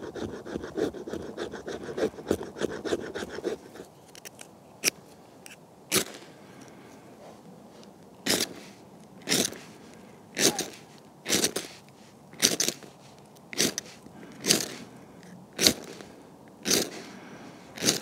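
A knife blade scraping a fatwood stick in quick, close strokes for the first few seconds, raising fine resinous shavings. From about six seconds in, a ferro rod is struck about once a second, each strike a short sharp rasp, throwing sparks into the fatwood shavings to light them.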